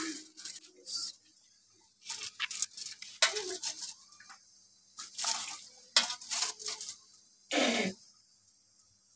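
Aluminium foil crinkling and rustling in short irregular bursts as hands press it flat and lay raw chicken pieces into it. Near the end there is a short sound falling in pitch.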